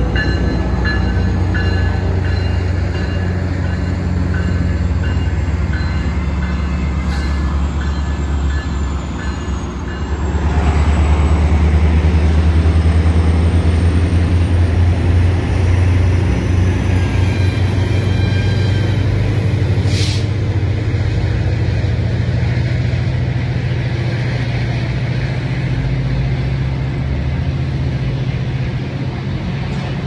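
MARC commuter train passing at close range: the diesel locomotive's engine hum at first, then the passenger coaches' wheels rumbling steadily over the rails. A thin high whine rises slowly through the middle, and one sharp clank comes about twenty seconds in.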